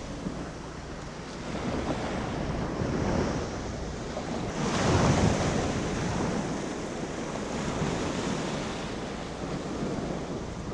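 Small waves washing in the shallow shore break, with wind noise on the microphone. One wash swells louder about halfway through.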